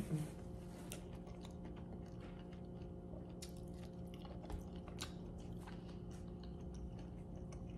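A person chewing a mouthful of seafood boil close to the microphone: soft, scattered wet clicks and smacks over a faint steady hum.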